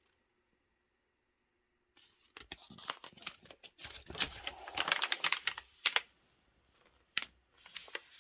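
Paper instruction sheets being handled and leafed through: a run of crinkling rustles and clicks starting about two seconds in and lasting about four seconds, then one sharp click.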